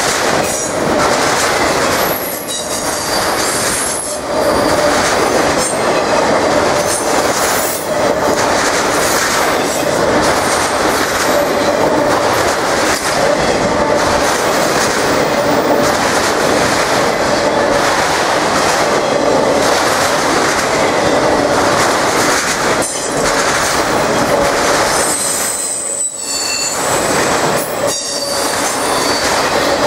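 Autorack freight cars rolling past close by: a steady rumble and clatter of steel wheels on rail, with high-pitched wheel squeals about two seconds in and again a few seconds before the end.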